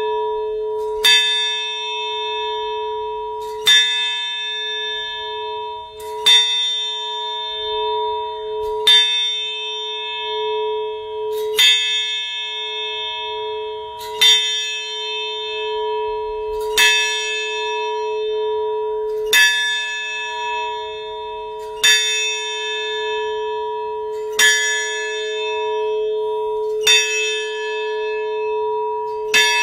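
A large bell in a stone bell tower tolling slowly and evenly, about twelve strokes, one every two and a half seconds or so. Each stroke rings on, so a steady hum carries between them.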